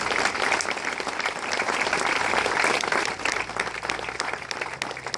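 Small crowd applauding and clapping, thinning out toward the end.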